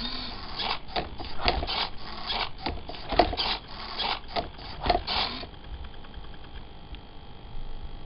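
Hobby servos of a Lego-built Rubik's cube solver whirring in a quick series of short bursts, with knocks, as the cradle turns and the arm flips the cube; the motion stops about five and a half seconds in.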